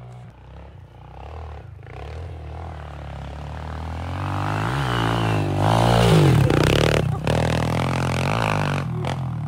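Kawasaki KLX mini dirt bike's single-cylinder four-stroke engine revving up and down as it rides through snow. It grows louder to a peak about six seconds in as it passes close, then fades as it pulls away.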